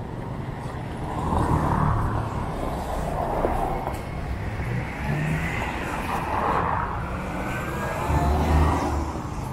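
Road traffic passing close by: car and motorcycle engines and tyre noise that swell and fade several times, loudest about a second in, at about six and a half seconds and near the end.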